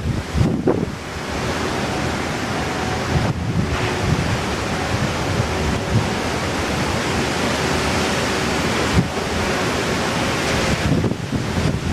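Strong, gusty typhoon wind buffeting the microphone: a dense, steady rush with low thumps as gusts hit.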